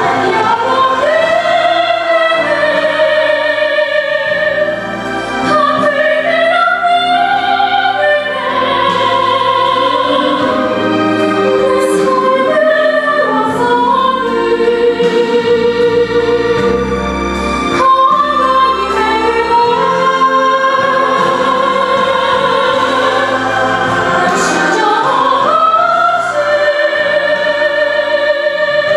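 A woman singing a Korean worship song solo into a handheld microphone, in a trained, operatic voice with long held notes and a wide vibrato.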